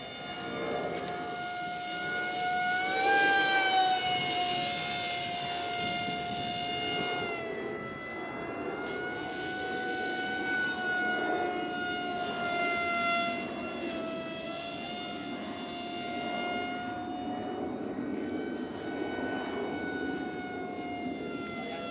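Brushless 2212 2200 kV electric motor spinning a 6x4 propeller on a foam RC F-117 in flight: a steady high whine that drifts slightly in pitch with throttle. It swells loudest about three to four seconds in, rising and then dropping in pitch as the plane passes, and swells again around twelve seconds.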